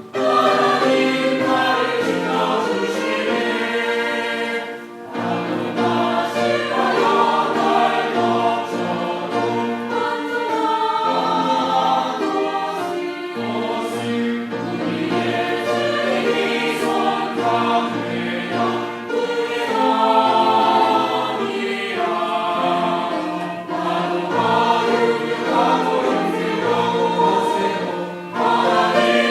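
Church choir singing a hymn in several-part harmony, with short breaks between phrases about five seconds in and again near the end.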